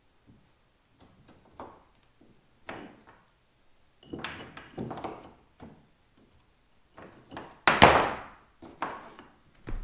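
Small pieces of lightweight AirStone faux stone being handled and test-fitted against a drywall wall by hand: a string of short, irregular scrapes and knocks, with a louder knock a little before the end.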